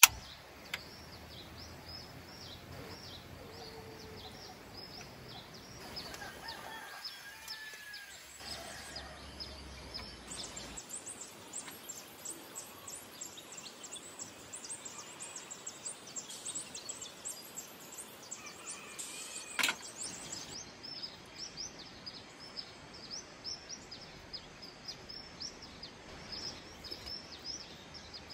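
Outdoor ambience of high-pitched chirping repeating several times a second, with a single sharp click about two-thirds of the way through.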